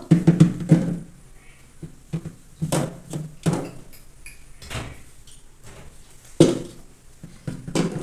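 Plastic-coated wire shelves being slid into a refrigerator's moulded plastic rails, clicking and knocking against the liner as they go in, with a louder knock about six seconds in.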